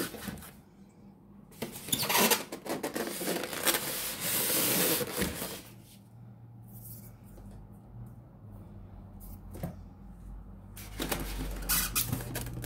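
Cardboard and styrofoam packaging being handled and shifted: rustling and scraping, loudest in the first half, with a few light knocks.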